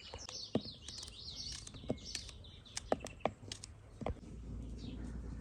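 A small bird singing a quick, twittering phrase in the first second and a half, with scattered sharp clicks and snaps throughout and a low steady hum coming up near the end.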